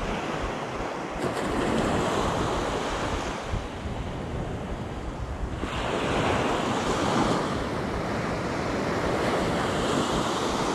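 Small ocean waves breaking and washing up a sandy beach, with wind buffeting the microphone. The wash swells louder about two seconds in and again about halfway through.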